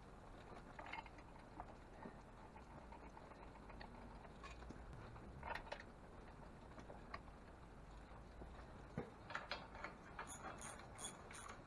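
Faint scattered metallic clicks and knocks of hand tools, with a run of quick ratchet clicks about ten seconds in, about five a second.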